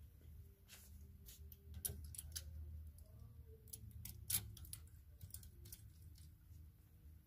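Clothes hangers clicking and scraping on a metal display rail as garments are hung and shifted along it: a scatter of sharp clicks, the loudest about four seconds in, over a low steady hum.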